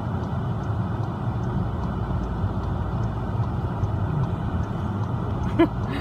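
Steady low road and engine rumble inside a slow-moving car's cabin. A brief, short pitched sound cuts in near the end.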